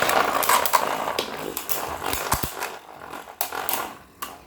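Beyblade spinning tops whirring against each other in a stadium, with sharp clacks as they collide and knock against the walls. The whir is loudest at the start and fades as the tops slow.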